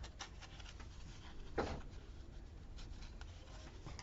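Faint rustling and rubbing of paper stickers being handled and pressed onto a planner page, with one sharper rustle about one and a half seconds in.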